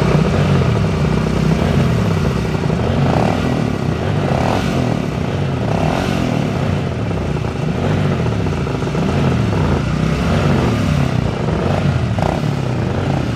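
Two classic racing motorcycles, a Ducati TTF2 V-twin and a Seeley G50 single, running side by side while the throttles are blipped, so the two engine notes rise and fall against each other with a short surge every couple of seconds.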